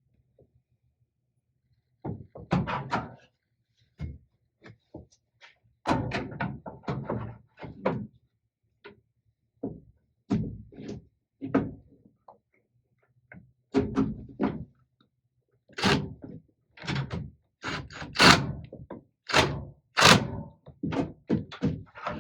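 Irregular metal clanks and knocks from tools and steel tailgate parts being handled and bolted on, starting about two seconds in and coming in uneven bursts.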